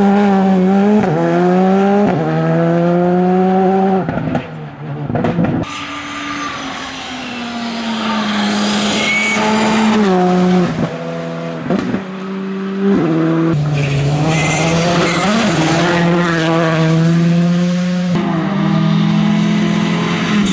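Turbocharged four-cylinder R5 rally car engines driven flat out, one car after another: revs climb through the gears with quick upshifts and fall away as the cars lift off and brake, the engine note cutting off sharply several times.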